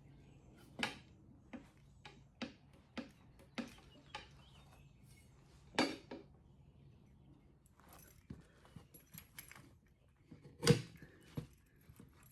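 Irregular metallic clinks and knocks of tools against a motorcycle wheel while a tire is worked onto the rim, about a dozen in all, the loudest about a second in, near the middle and near the end.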